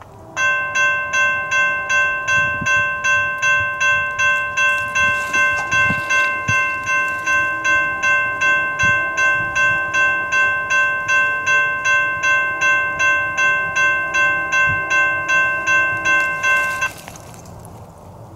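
Railroad grade-crossing bell ringing steadily, about two and a half strokes a second, then cutting off suddenly near the end.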